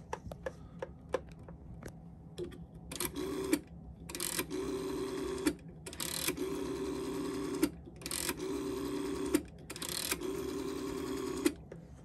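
Rotary dial of a 1965 GPO 706 telephone dialling a number: five times the dial is pulled round and let go. Each return is a whirr of about one to one and a half seconds, its length differing from digit to digit, and light clicks come first as the finger first works the dial.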